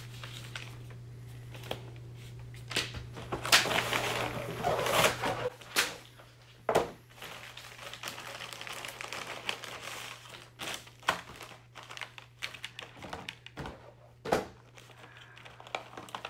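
Sterile packaging of a Bakri balloon catheter kit being opened and handled: plastic and paper crinkling and rustling, loudest about four to five seconds in, with scattered clicks and taps as the plastic tray is moved. A steady low hum runs underneath.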